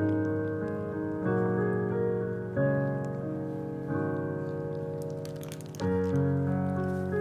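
Background piano music: slow, sustained chords that change every second or two. A brief crackling noise comes through about five seconds in.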